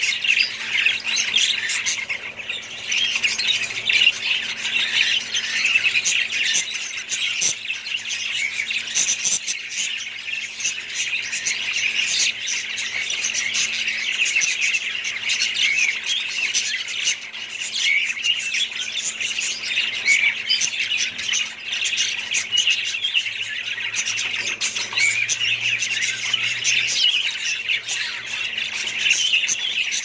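A cage of budgerigars chattering and chirping continuously, many birds calling over one another.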